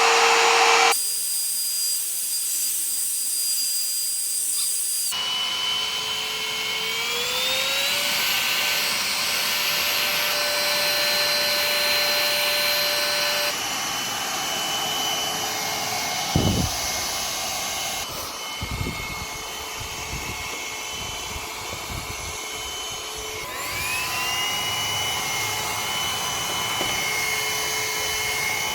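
Geek A8 cordless stick vacuum cleaner's motor running while picking up dust, a steady whine whose pitch rises twice as the motor speeds up. A few low knocks come midway.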